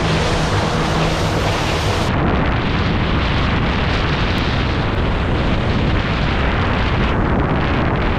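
Heavy wind rumble on a small action camera's microphone moving at speed. For about the first two seconds a boat runs fast across the water, with a steady engine hum under the wind. Then the sound changes suddenly to wind noise from a car driving along a road.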